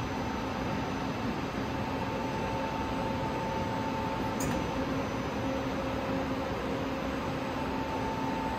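Smart Machine Tool NL 4000L CNC turning center running, a steady mechanical hum with a high whine. The whine drops out about five seconds in and returns near the end. One brief high tick comes about four and a half seconds in.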